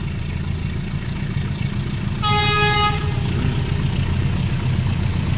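CC204 diesel-electric locomotive approaching with a steady low engine rumble. It sounds one horn blast, just under a second long, a little past two seconds in.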